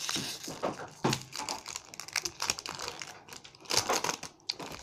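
Foil trading-card booster pack crinkling and crackling in the hands as it is opened and the cards are slid out, with the loudest crackle near the end.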